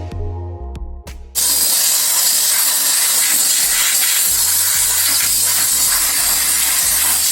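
Steam cleaner jetting steam in a loud, continuous hiss that starts about a second in, over background music with a steady beat.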